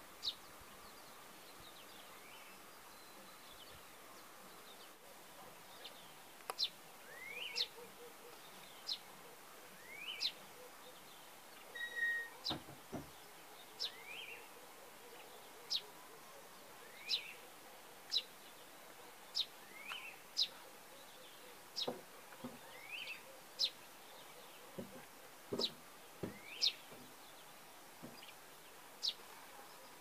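Small bird calling: short, high, sharp chirps, some sliding down and some rising. There is one at the start, then from about six seconds in they repeat roughly once a second.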